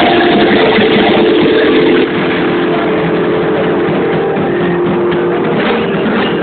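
Live rock band playing loud, overloading the phone's microphone into a distorted wash, with notes held steady under it.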